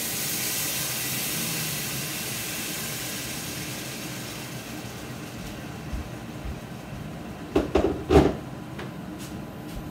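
Liquid poured from a stainless kettle into a hot stockpot of cooking ground chicken, hissing and steaming, the hiss fading away over the first few seconds. A few sharp clatters follow near the end, the loudest sounds here.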